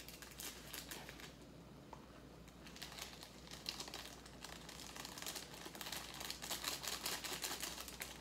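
Plastic food packets crinkling and rustling as they are handled and torn open, getting busier after about three seconds.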